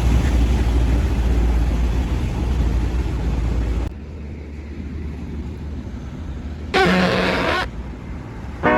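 A heavy vehicle's engine rumbling with a deep, steady low drone, cut off suddenly about four seconds in. A short, loud pitched blast follows near the end, and a quick rising 'boing'-like glide begins right at the close.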